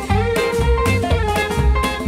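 Instrumental opening theme music with a steady beat.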